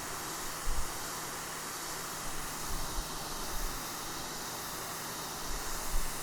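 Sun Joe SPX3000 electric pressure washer spraying through its 15-degree nozzle onto concrete slabs: a steady hiss of the water jet over a faint low hum, with a few soft low bumps.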